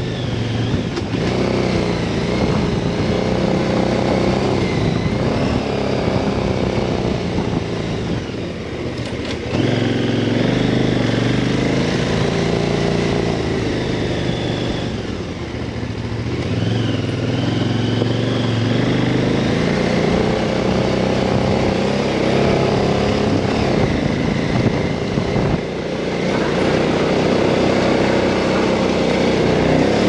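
KTM 990 Adventure's V-twin engine running under way, its pitch climbing and falling with the throttle. The engine note drops and picks back up three times, about nine, fifteen and twenty-six seconds in.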